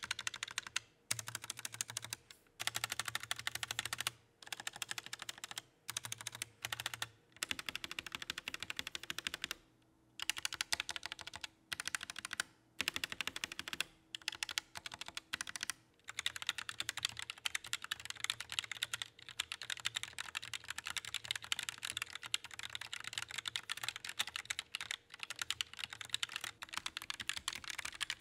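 Roccat Vulcan II Mini and Vulcan II Mini Air keyboards with Titan II optical switches and ABS keycaps, keys pressed in turn as short clusters of clicks. For about the first seven seconds it is spacebar presses on the Vulcan II Mini, whose stabilizer wire has a noticeable rattle. Then come spacebar presses on the Mini Air, whose stabilizer barely rattles. From about sixteen seconds in it is steady typing on the Vulcan II Mini, switching to the Mini Air near the end.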